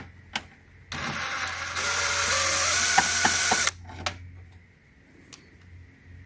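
Electric screwdriver running for about three seconds, backing out a computer case screw, with a few sharp clicks before and after. It stops abruptly.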